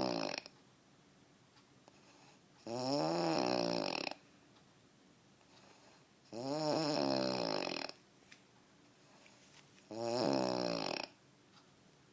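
A man snoring: the tail of one snore right at the start, then three long pitched snores of about a second and a half each, coming every three and a half seconds or so with quiet gaps between.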